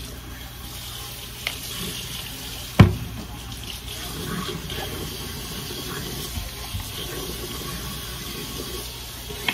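Tap water running into a sink while hair is being washed, with one sharp knock about three seconds in.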